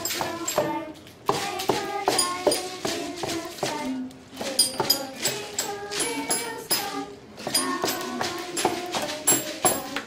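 A group of children playing homemade instruments all at once: rubber bands on boxes and bowls plucked and twanged, and bead-filled can shakers rattling, in a busy, uneven clatter of many sharp strokes a second with short twanging notes.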